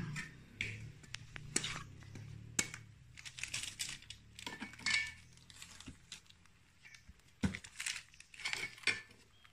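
Durian husk being pried open along its seams with a meat-cutting knife: irregular clinks and knocks of the metal blade, with crackling and tearing as the rind splits. A few louder knocks stand out, one about two and a half seconds in and one near the three-quarter mark.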